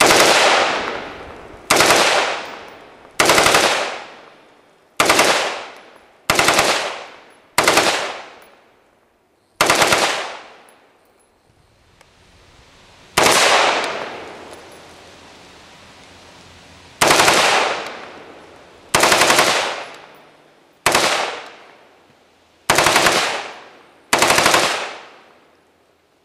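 AR-15 rifle with a Slide Fire SSAR-15 bump-fire stock firing in rapid bursts, the recoil driving fast repeated shots like automatic fire. About thirteen short strings of shots, a second or two apart with a few longer pauses, each trailing off after it stops.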